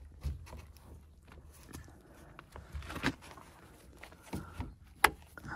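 Light rustling and taps of a rubber door seal being pressed back into place along a Mercedes W124 door bottom by a gloved hand, with a louder knock about three seconds in and a sharp click about five seconds in.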